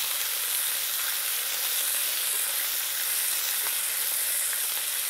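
Thin strips of lamb and slices of halloumi sizzling steadily in olive oil on a very hot grill plate.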